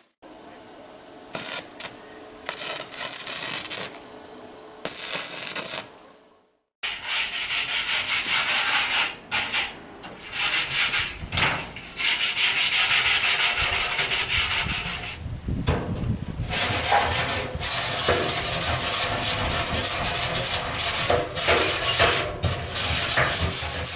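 Metalwork on steel oil drums: a harsh, rasping noise in repeated stretches. It comes in short runs at first, then in long, nearly unbroken runs after a brief pause.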